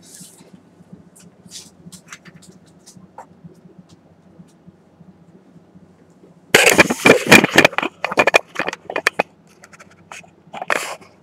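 Camera handling noise: a loud cluster of knocks, scrapes and rustles from about six and a half to nine seconds in as the camera is picked up and turned, with scattered lighter clicks before and after. Under it runs a steady low hum from the running BenQ MP515 projector.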